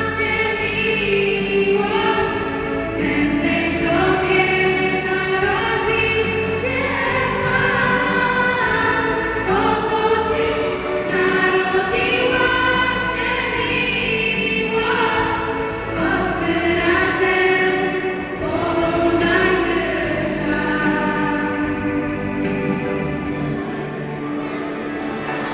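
Girls singing a Christmas song into handheld microphones, with musical accompaniment.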